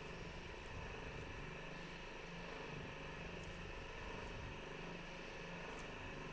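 A motor running steadily with an even hum.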